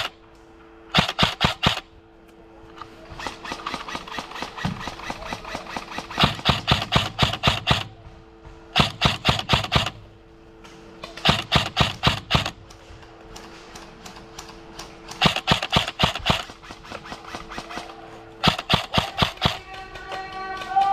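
Airsoft gun firing repeated bursts of rapid shots, about six bursts of roughly a second each. Fainter shots crackle between them.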